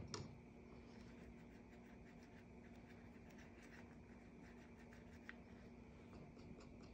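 Faint scratching and light ticks of a wet brush scrubbing dried watercolour paint pans in a metal palette, taking off the old top layer of colour, over a low steady hum.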